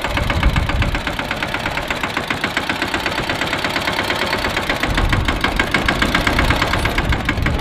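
Mini tractor's diesel engine running as it drives through soft dirt, a fast, even chug, with heavier low rumbles about half a second in and again from about five seconds in.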